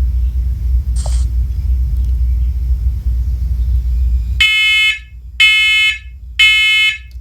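A low rumble, then about four seconds in a First Alert smoke alarm's horn starts sounding in test mode: three loud, high-pitched half-second beeps in the three-beep evacuation pattern.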